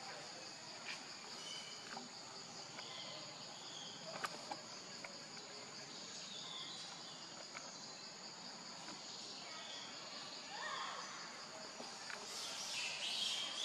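Steady, high pulsing drone of an insect chorus, with scattered short chirps and a few faint clicks. A brief louder call comes near the end.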